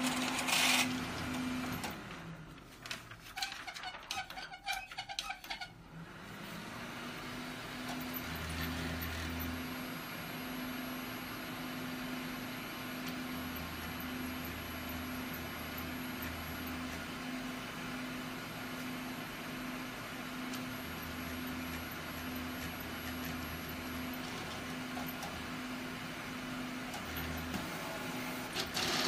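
Large-format inkjet printer running: a steady mechanical hum that winds down about a second in, leaves a few light clicks, and winds back up about six seconds in. Low motor hums of one to three seconds come in several times over it.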